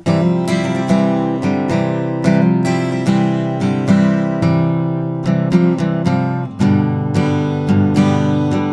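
Acoustic guitar music, chords strummed in a steady rhythm.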